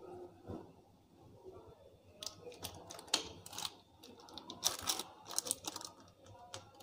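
Knife blade scoring cut lines into soft, half-set besan burfi on butter paper: a quick run of small clicks and scrapes. They start about two seconds in and come in two bunches.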